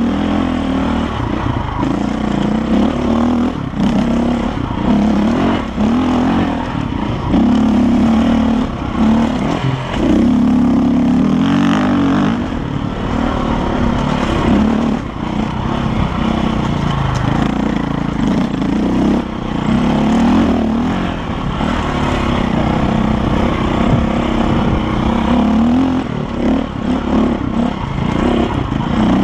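KTM dirt bike engine revving under load, its pitch rising and falling continuously as the throttle opens and closes on a rough climbing trail.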